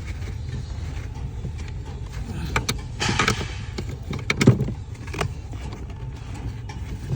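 Metal clicks and clinks of a ring spanner working the 12 mm bolts on a car's clutch cable mounting, with a short scrape about three seconds in and a louder clack about four and a half seconds in, over a steady low rumble.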